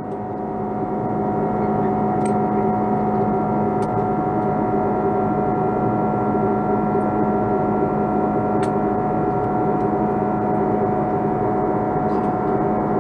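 Airbus A330's Rolls-Royce Trent 700 engines heard inside the cabin in flight: a steady, loud drone of several held tones over a rushing noise, swelling slightly in the first second.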